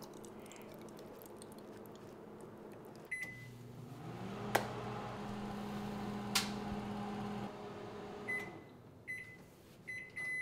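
Countertop microwave oven: a keypad beep, then it starts running with a steady hum that rises in pitch as it gets going, with two sharp clicks along the way. The hum stops and the oven beeps several times in a row near the end, signalling the cycle is done.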